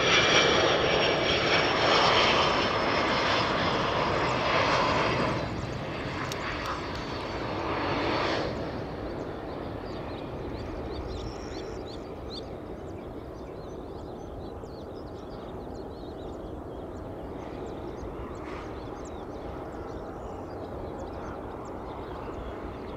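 McDonnell Douglas MD-80-series airliner's rear-mounted Pratt & Whitney JT8D jet engines passing low on final approach: a loud jet roar with high whining tones slowly falling in pitch. It fades in steps over the first nine seconds or so to a quieter steady rumble as the plane rolls out on the runway.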